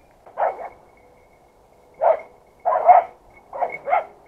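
Young Brittany spaniel barking: one bark, a pause, then a quick run of four or five barks.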